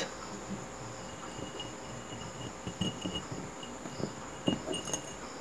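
Light taps and scrapes of wire screen mesh being worked into a glass jar over small stones, a few soft clicks near the end. Behind them, insects chirping steadily.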